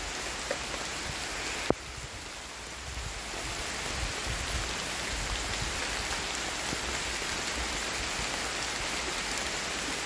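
Steady rain falling, an even hiss. A single sharp click comes a little under two seconds in, and the rain sounds briefly quieter after it.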